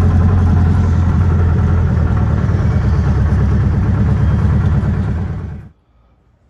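1972 VW Super Beetle's air-cooled flat-four engine running steadily at low revs, then stopping abruptly about five and a half seconds in.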